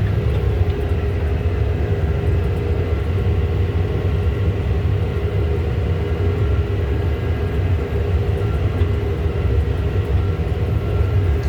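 John Deere tractor's diesel engine running steadily under way, a low even drone with a faint steady hum above it.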